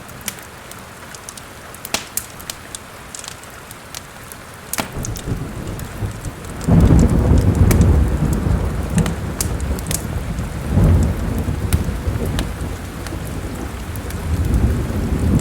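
Steady rain with a wood fire's sharp crackles and pops over it, and thunder that breaks into a loud low rumble about halfway through, swelling again twice before the end.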